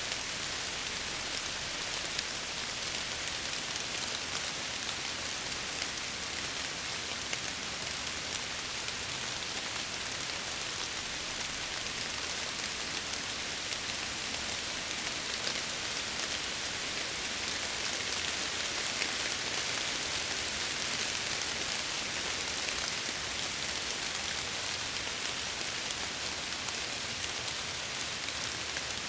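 Steady rain pattering on window glass, a continuous hiss with scattered individual drop ticks.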